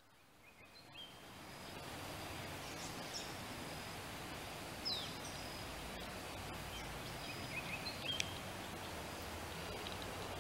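Outdoor ambience: a steady background hiss with birds chirping now and then, fading in over the first two seconds.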